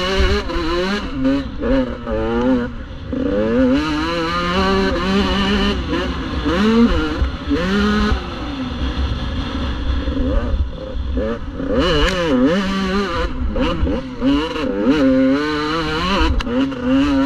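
Dirt bike engine heard from an onboard camera, its pitch climbing and dropping over and over as the throttle opens and closes around a motocross track. A steady low rumble of wind runs underneath.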